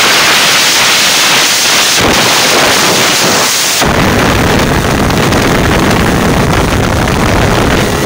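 Loud wind rush and buffeting on a phone microphone moving at speed: a bright hiss at first, turning about four seconds in into a heavy, deep rumble of wind blasting the mic.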